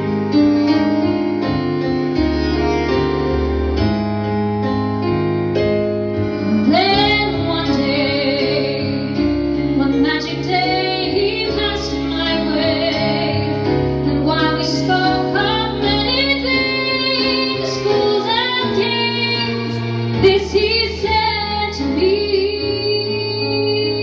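A live band playing a ballad with keyboard, bass and violin; a woman's voice comes in singing about seven seconds in and carries the melody over the band.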